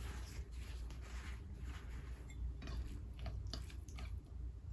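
Red lentil dal poured from a small bowl onto a plate of rice, then fingers mixing the rice by hand: soft, faint wet sounds with a few light clicks about three seconds in, over a steady low hum.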